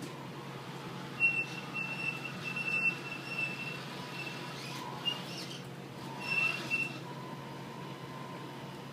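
Radio-controlled semi truck with a loaded lowboy trailer driving: a steady low hum with a thin high-pitched squeal that comes and goes between about one and seven seconds in.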